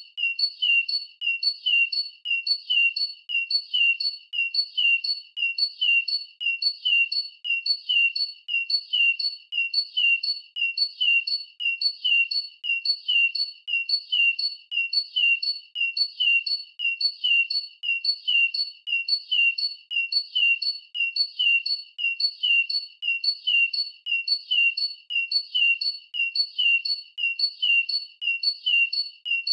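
Bird chirp sound effect: one short, high chirp repeated about twice a second at a perfectly even pace, without a break.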